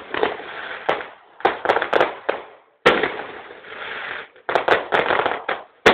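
Aerial fireworks shells bursting: a quick, irregular series of sharp bangs, each followed by a fading noisy trail, with clusters of bangs about a second in, near three seconds, and around five seconds.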